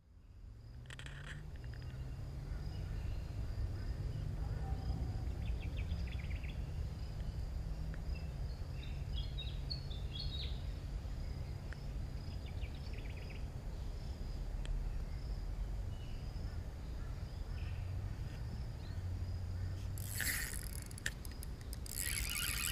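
Outdoor ambience: scattered bird chirps and a thin steady insect drone over a low rumble of wind on the microphone. Near the end come two loud rushes of noise.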